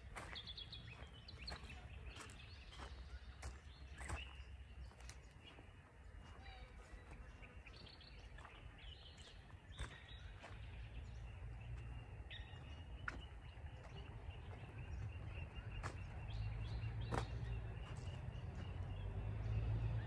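Outdoor ambience with scattered short bird chirps over a steady low rumble that grows louder toward the end, and occasional sharp clicks.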